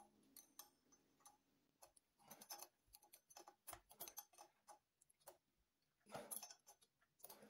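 Faint, irregular metallic clicks and ticks as an Allen key works the hex screw that fixes the lever of a Grohe concealed shower mixer and the lever is handled, with a short rustle about six seconds in.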